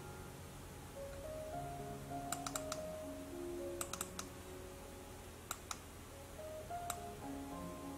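Soft background music with slow sustained notes, over which computer keys click about ten times in short clusters of two to four.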